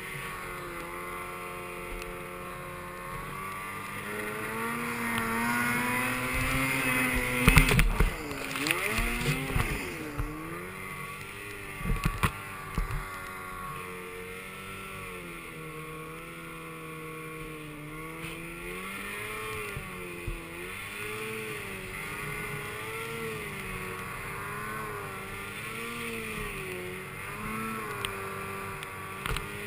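Snowmobile engine running through deep snow, its pitch rising and falling again and again as the throttle is worked. About eight seconds in come several loud thumps and a short, louder stretch of revving, with a few more knocks around twelve seconds.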